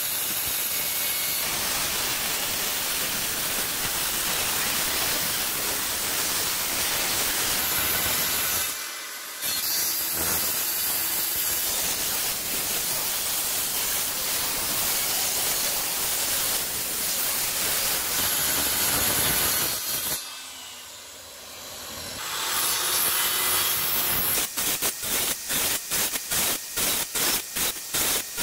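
Handheld electric circular saw running and cutting through pallet-wood planks in long continuous cuts, easing off briefly twice. Near the end it turns to a fast, even pulsing of about three beats a second as the blade makes repeated shallow passes to cut out lap joints.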